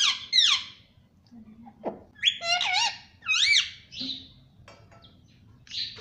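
Indian ringneck parakeet calling: a quick burst of shrill chirps at the start, then, about two seconds in, a run of high whistle-like calls that swoop up and down in pitch for about two seconds.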